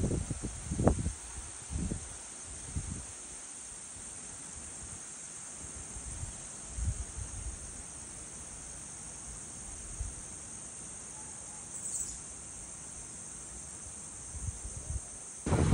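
Steady high-pitched insect chorus from the forest, with a few low thumps in the first few seconds; it cuts off abruptly at the very end.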